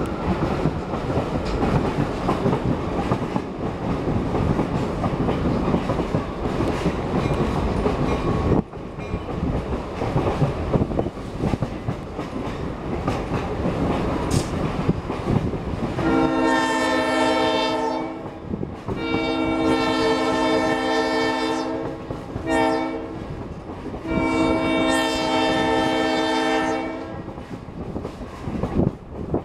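Moving diesel locomotive heard from its running board: a steady rumble of engine and wheels on the rails. A little past halfway, the locomotive's air horn sounds a series of long blasts with short gaps between them, close and loud.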